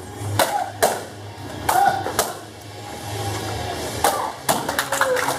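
Taekwondo kicks striking handheld paddle kick targets: a series of about six sharp smacks, several of them with a short shout (kihap) from the kicker.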